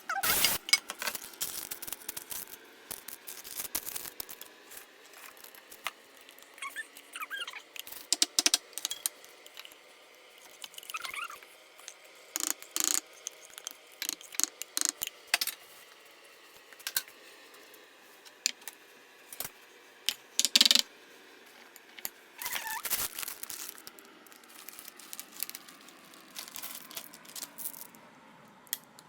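Irregular sharp clicks and taps with brief rustles, from hands handling baking pans and paper at a kitchen counter.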